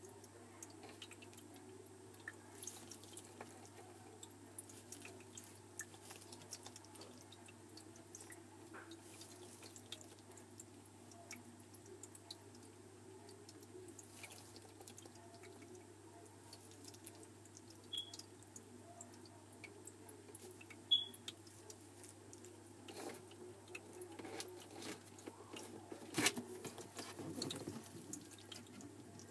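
Faint scattered clicks and ticks over a steady low hum, with a few louder clicks in the second half: a bearded dragon snapping up and chewing mealworms from a hand on wood-shaving bedding.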